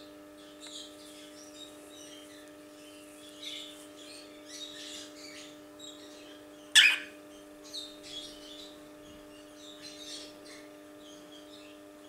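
Two young cockatiels, about two months old, chirping softly on and off, with one much louder, sharp burst about seven seconds in. A steady low hum runs underneath.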